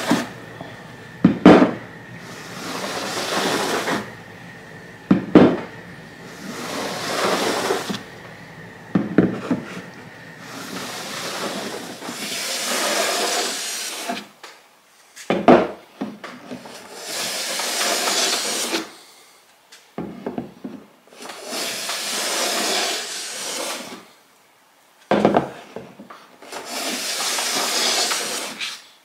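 Low angle jack plane shaving along the edge of spruce guitar top plates, jointing them for the glue-up: about seven long, hissing strokes, each a couple of seconds long, with a sharp knock between some of them.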